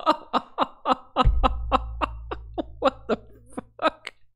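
A man laughing hard in a long run of short, rhythmic bursts that thin out near the end. About a second in, a deep low rumble comes in suddenly and fades away over the next few seconds.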